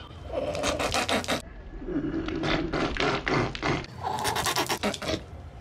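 Spluttering, spraying noise of a mouthful of water being spat out, in rough bursts, loudest just after four seconds in. Between the bursts there is a duller, dubbed-in sound effect.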